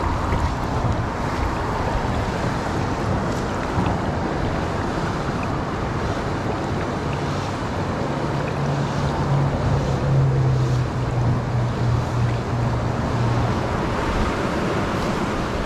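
Fast river current rushing and rippling past, with wind buffeting the microphone. A steady low hum comes in about seven seconds in and fades out about six seconds later.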